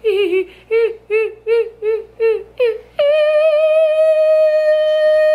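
A woman's voice laughing in a string of short, sing-song bursts, about two a second, each dropping in pitch. About three seconds in she breaks into one long, steady, high held note.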